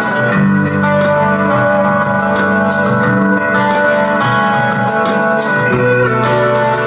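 Music with a steady beat, played through a TDA7492 Class D amplifier board driving a small speaker.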